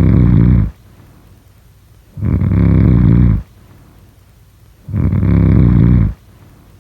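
Loud, rhythmic snoring: a snore ending just under a second in, then two more, each a rough buzzing rasp lasting a little over a second, about every two and a half to three seconds, with quiet pauses between.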